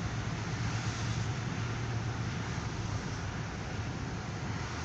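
Traffic passing through an intersection, heard from inside a stopped car: a steady wash of road noise over a low, constant hum.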